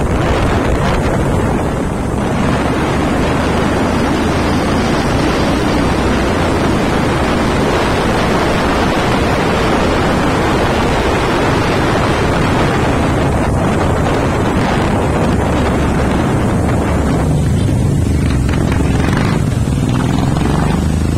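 Wind noise buffeting a motorcyclist's helmet-mounted microphone while riding, over the steady low running of the motorcycle engine. The wind noise eases somewhat near the end as the bike slows.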